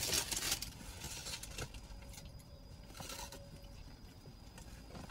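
Sandwich wrapper rustling and crinkling in two short bursts, at the start and about three seconds in, as a chicken biscuit is handled and bitten into, with a few faint clicks between.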